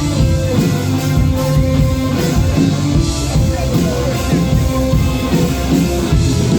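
Rock band playing an instrumental passage without singing, with a drum kit keeping a steady beat under held chords.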